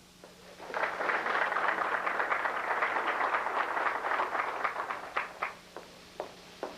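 Audience applauding for about four seconds, then dying away to a few scattered claps.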